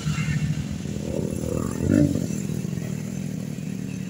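Road traffic: a vehicle engine running past, with a steady low hum that swells to its loudest about two seconds in.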